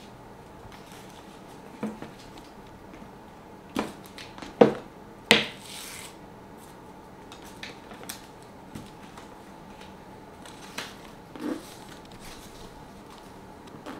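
Tissue paper rustling and crinkling as it is handled and pulled out of a new canvas handbag, with a few sharp taps and clicks, the loudest about four to five seconds in.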